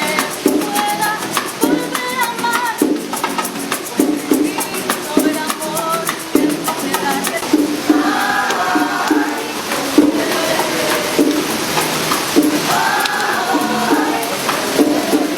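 Latin-style music with a steady beat and a shaker rattling through it, and a melody line that comes in twice.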